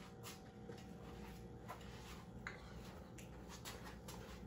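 Faint, scattered ticks and clicks of hands handling small tools and a pair of scissors, over a low steady hum.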